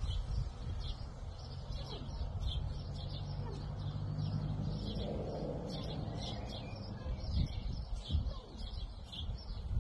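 Small birds chirping in quick short calls again and again, over a low rumble, with a steady low hum from about one and a half to five seconds in.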